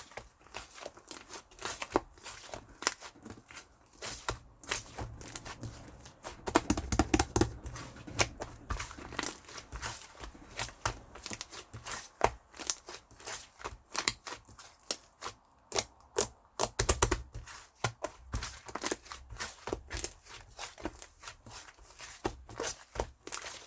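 Pink slime squished and poked by hand, giving a long run of irregular wet clicks and small popping crackles, thickest about a quarter of the way in.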